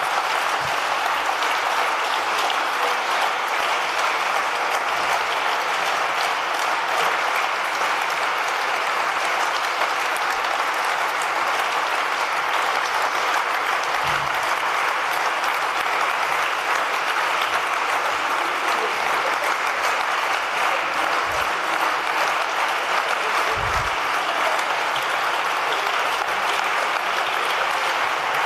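Steady applause from a large standing assembly clapping together, with no break.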